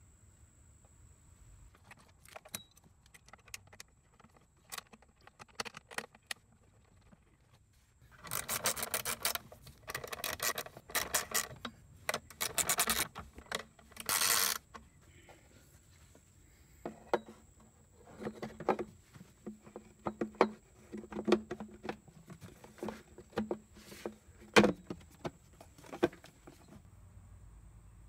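Hand tools and metal parts being worked on a scooter: scattered clicks and clatter, with several quick runs of rapid clicking in the middle.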